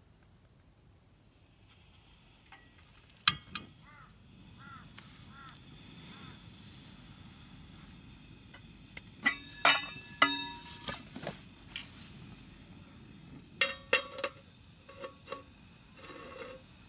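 Scattered sharp metallic clicks and clinks from a portable gas stove and its butane canister being handled, a cluster of them ringing briefly. Near the end an aluminium pot is set down on the stove's pot supports with a few more clinks.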